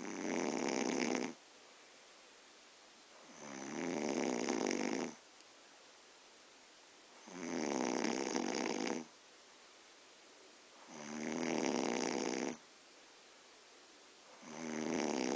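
A woman snoring really loud in deep sleep: long snores about every three and a half to four seconds, each lasting about a second and a half, with quiet in between.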